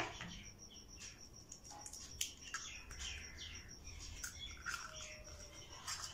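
Birds chirping in the background, many short falling chirps, over a steady high-pitched pulsing note. A few light clicks come from an egg's shell being cracked open and pulled apart over a bowl.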